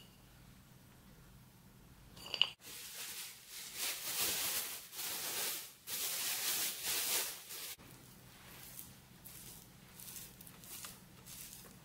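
A brief clink, then a plastic bag rustling and crinkling for about five seconds as a lump of dough is handled in it. After that, quieter repeated scraping strokes of crumbly dough being rubbed down a metal box grater.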